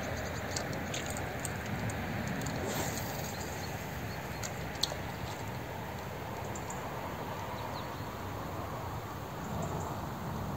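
Steady wash of a fast river current and wind, with scattered short, faint high ticks.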